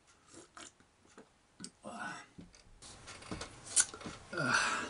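Scattered light clicks and clinks of tableware at a meal table: a spoon, mug and metal bowls being handled, with a louder brief noise near the end.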